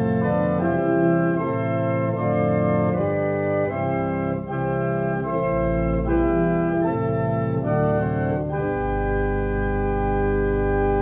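J J Binns pipe organ playing a chordal passage on its Great manual with the 16-foot bourdon added to all the other stops, giving a full, majestic sound. The chords change about every half second to a second, a very deep bass comes in twice, and the passage ends on a long held chord.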